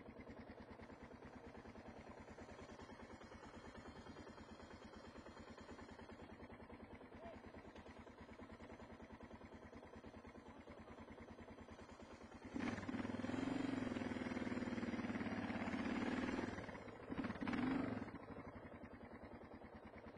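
Single-cylinder dual-sport motorcycle engine running along a dirt trail with a steady beat. More than halfway through it gets much louder for about four seconds as the throttle opens, dips briefly, then swells once more before settling back.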